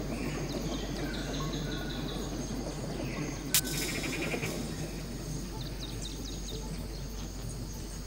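Tropical forest ambience: insects chirping in short rapid trains of pulses and other brief animal calls over a steady background hiss, with one sharp click about three and a half seconds in.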